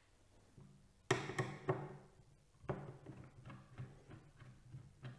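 Screwdriver clicking and tapping on the screws of a plastic AM4 retention bracket as it is unscrewed from the motherboard: one sharper knock about a second in, then a run of small, light ticks.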